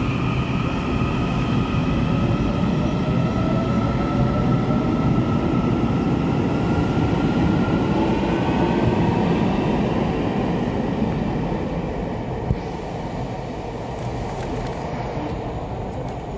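Taiwan Railway electric commuter train pulling out along the platform: a steady rumble of wheels on rail with a motor whine that slowly shifts in pitch. The sound fades after about ten seconds as the last cars go by, and a single sharp knock comes near the end.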